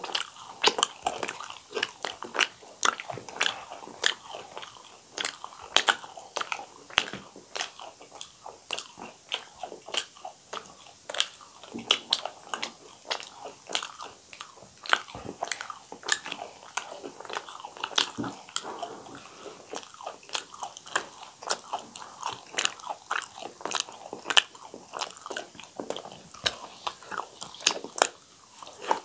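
Two people eating crisp fried pooris close to the microphone, biting and chewing: a dense, irregular run of sharp crunches and crackles.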